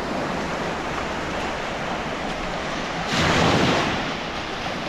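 Small sea waves washing up on a shore of fine pebbles and sand, with a louder wash of surf about three seconds in.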